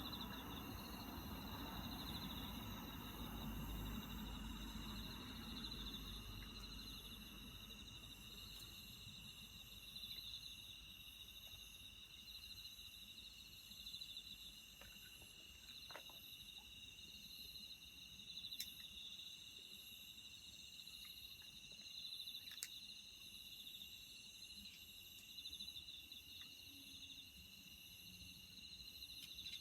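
Faint, steady chirping of insects at two high pitches, with a low rumble in the first few seconds and a few sharp clicks about midway.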